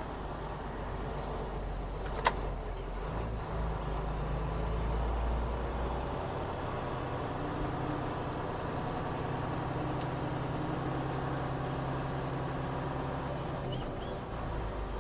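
Semi truck's diesel engine running at low speed, heard from inside the cab, its note changing a few times. There is one sharp click about two seconds in.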